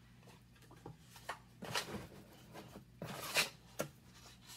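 Tan crinkled packing paper rustling and crackling as it is handled and pulled from a box, loudest about two seconds in and again just after three seconds, with a few light taps before.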